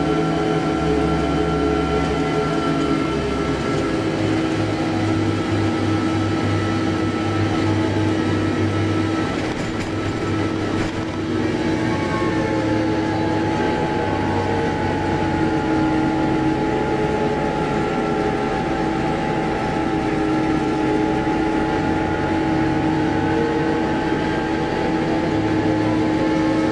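New Holland LB 115.B backhoe loader's diesel engine running steadily at road speed, a continuous drone with a steady whine over it. The level dips briefly about ten seconds in, and a higher whine sets in soon after.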